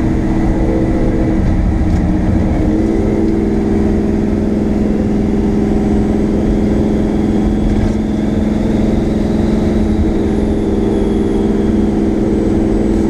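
Twin-turbocharged 393 small-block V8 of a 1965 Ford Mustang, heard from inside the cabin, running steadily under way. Its pitch dips briefly about two seconds in, then holds steady.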